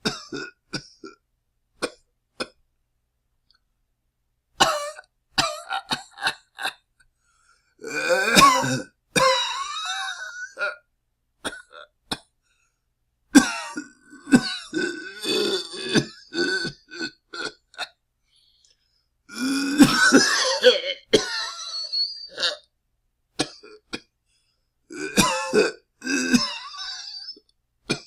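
A person coughing and clearing their throat in a series of bouts: a few single short coughs at first, then longer runs of coughs with brief silences between them.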